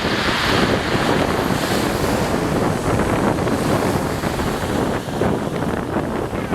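Strong wind buffeting the microphone in a loud, steady rush.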